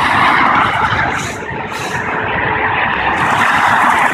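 Road traffic passing below an overpass: the steady tyre and engine noise of cars and trucks, easing a little about a second and a half in and swelling again as more vehicles go by. No horn sounds.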